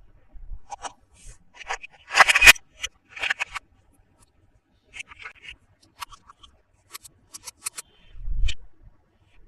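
Toy packaging being handled and opened by hand: a run of small clicks and scrapes, a louder rustling burst about two seconds in, and a dull thump near the end.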